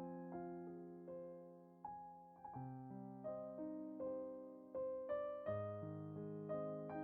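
Background music: slow, gentle piano playing chords and single notes, each struck and left to fade.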